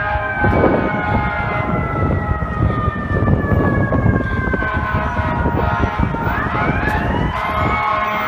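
Fire truck's mechanical siren slowly winding down in pitch, then winding back up about six seconds in, over the heavy rumble of the truck and street traffic.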